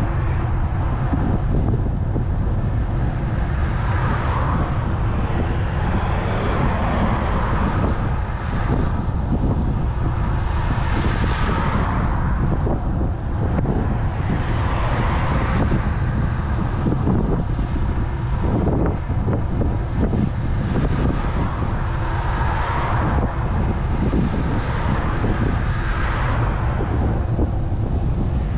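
Steady wind rumble on the microphone of a bicycle-mounted camera while riding along a road, with passing cars swelling up and fading every few seconds.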